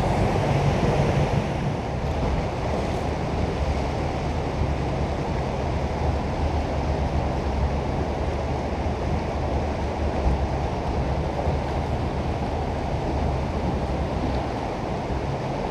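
Steady rush of river water and wind buffeting the microphone, with a low steady hum from the jet boat's engine underneath.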